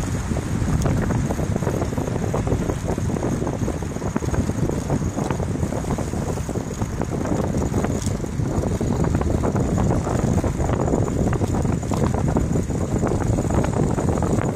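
Steady wind rush on the microphone of a camera carried on a moving bicycle, with rolling road noise from the ride and a faint, steady high whine underneath.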